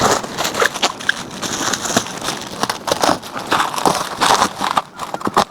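Packing material being pulled and crumpled while unboxing an electric bike, an irregular run of crinkling and crackling.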